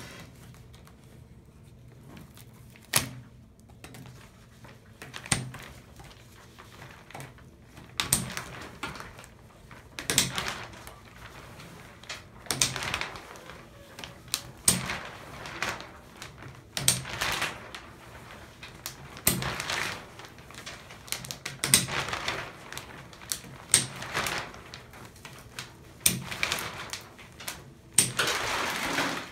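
Clear plastic shower curtain rings clicking shut around a shower rod one by one, a sharp click about every two seconds, each followed by the rustle of the fabric curtain and plastic liner being handled.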